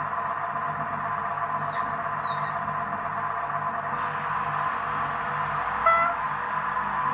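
Sound decoder of a Roco HO-scale SBB Beilhack diesel snowblower model playing a steady diesel-engine running sound through the model's small speaker while it stands still. A brief sharp sound comes about six seconds in.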